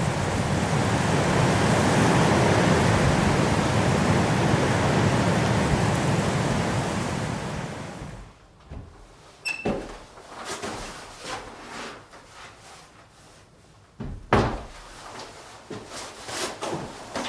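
Strong snowstorm wind blowing, a steady rushing noise that dies away about eight seconds in. Then it is quiet, with scattered knocks and thuds.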